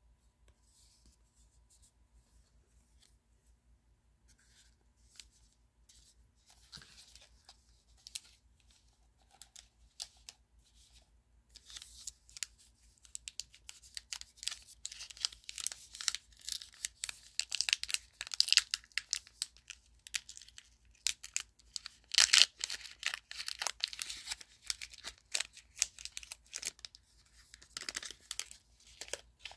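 Plastic wrapper of a Topps Heritage baseball card pack being handled and torn open. Sparse faint clicks at first, then from about twelve seconds in a long run of dense crinkling and tearing with several loud rips.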